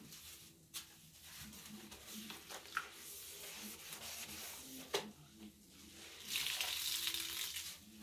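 Sponge scrubbing a wet bathroom sink basin, a swishing, watery rubbing with a few sharp clicks. The scrubbing gets louder about six seconds in for over a second.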